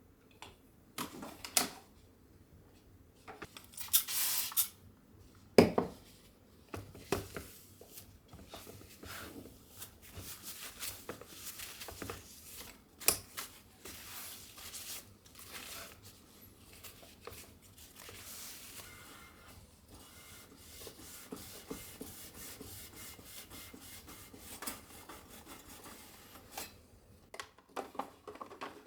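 Small objects being handled in a small room: scattered clicks, taps and rustles. A steadier rubbing or scraping sound runs through the second half.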